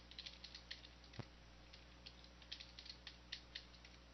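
Faint typing on a computer keyboard: scattered quick key clicks, with one heavier keystroke a little over a second in.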